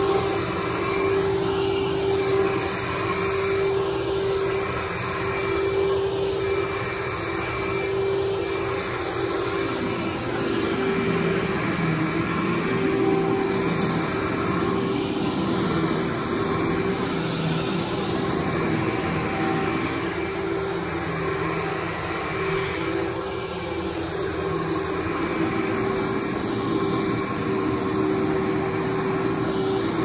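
Vacuum cleaner running steadily on carpet, a constant motor hum with a high steady note that shifts slightly in pitch partway through.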